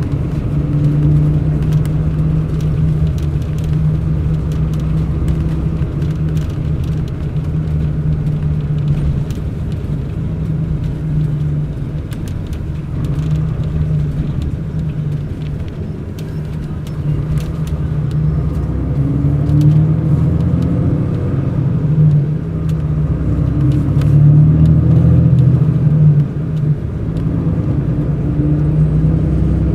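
Mercedes-Benz O500 RSD BlueTec5 coach's diesel engine running under way, heard from inside the bus: a steady drone that swells and eases a little with the throttle, loudest a little after the middle. Faint clicks and rattles sound through it.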